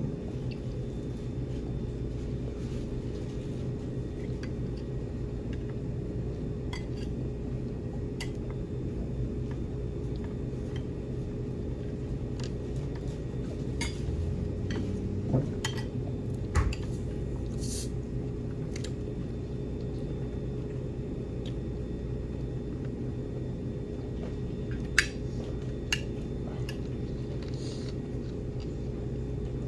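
Scattered clinks and taps of cutlery and dishes at a meal, a dozen or so over the stretch with the sharpest near the middle and about two thirds through, over a steady low room hum.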